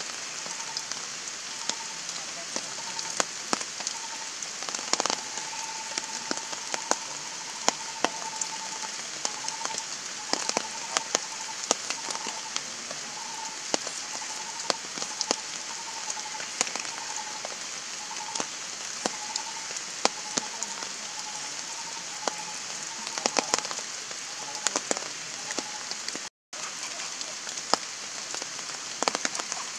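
Heavy rain falling steadily, with many sharp individual drop impacts. A string of short chirps at one pitch repeats through most of it, and the sound cuts out for an instant about three-quarters of the way through.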